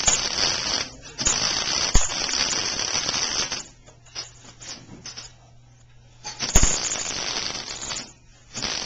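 Welder laying beads on thin bicycle frame tubing: three crackling, hissing bursts of a few seconds each, switched sharply on and off, with a couple of sharp clicks.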